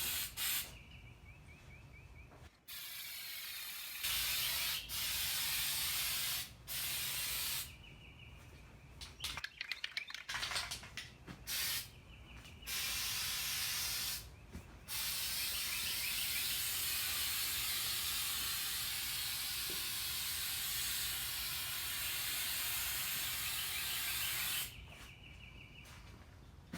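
Aerosol can of undercoating spraying in hissing bursts: several short passes in the first half, then one long steady spray of about nine seconds. A short run of rattling clicks comes about ten seconds in.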